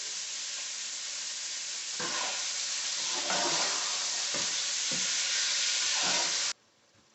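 Chicken breast pieces sizzling in hot avocado oil in a skillet: a steady frying hiss that grows louder about two seconds in and cuts off abruptly near the end.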